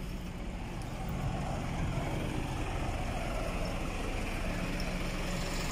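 Road traffic going past: a steady rush of car engines and tyres that grows slightly louder.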